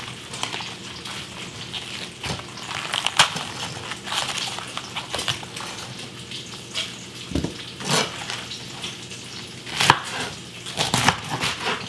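Knife cutting the core out of a head of cabbage on a cutting board: irregular crunching cuts and knocks, over the faint steady sizzle of bacon frying in a pan.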